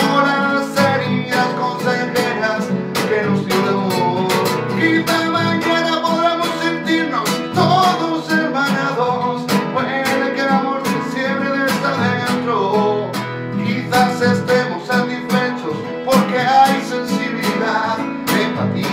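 Nylon-string classical guitar strummed in a steady rhythm, with a man singing along.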